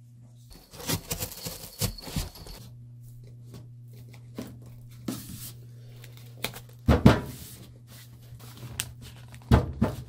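A piece of corrugated cardboard being torn, creased and folded by hand: about two seconds of scraping, ripping noise, then sharp knocks and crackles as it is pressed and folded against the hard top of a washing machine.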